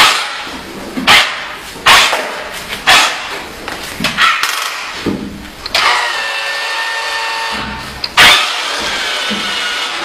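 Remote-control toy forklift's small electric motors and plastic gearing whirring in a series of short, sudden bursts, then running steadily with a thin whine from about six seconds in, broken by one more loud burst.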